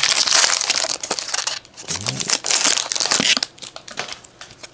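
Trading card pack wrapper crinkling and tearing as it is opened by hand, in two spells, the second ending about three and a half seconds in, followed by a few faint clicks.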